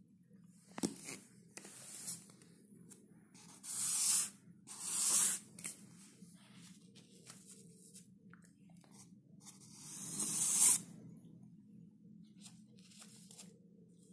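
Handling noise: several short bursts of dry scraping and rustling as soft pastel sticks are picked out of their foam-lined tray. The longest and loudest comes about ten seconds in, building up and then cutting off.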